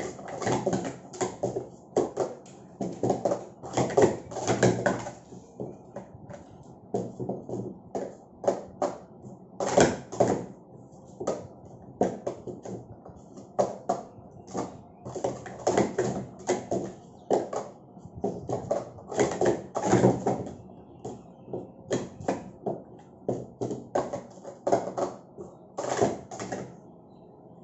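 Plastic sport-stacking cups clacking as they are rapidly stacked into pyramids and collapsed back down through a stacking cycle. The sound comes in quick runs of sharp clicks with short pauses between and stops near the end.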